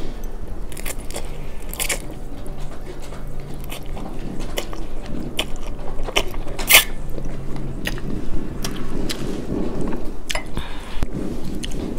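A person chewing and slurping instant ramen noodles close to a clip-on microphone, with sharp wet clicks scattered through; the loudest comes about seven seconds in.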